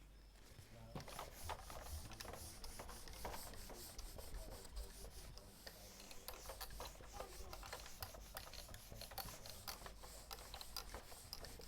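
Faint scratching and light tapping of writing, a run of short irregular strokes and clicks, over a low steady hum.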